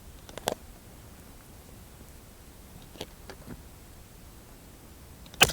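A few light clicks, then a loud sharp crack about five seconds in: a target-rifle shot on the firing line.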